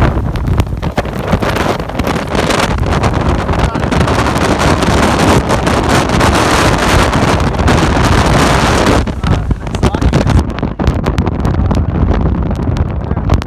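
Hurricane-force wind from Hurricane Florence blasting across the microphone, loud and gusty. About ten seconds in the high hiss falls away and the wind sounds duller.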